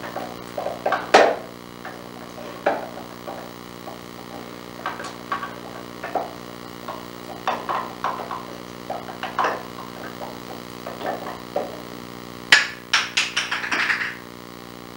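Small wooden drawers clicking, knocking and rattling as a parakeet pecks at and tugs them, with a quick run of sharp knocks near the end. A steady low hum runs underneath.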